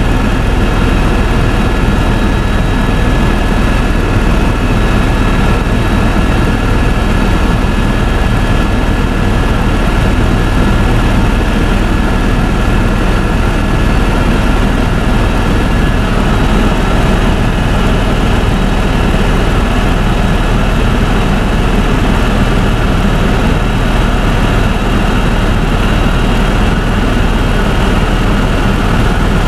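Helicopter in cruise flight heard from inside the cabin: a loud, steady drone of rotor and engine with a few constant high whining tones over it.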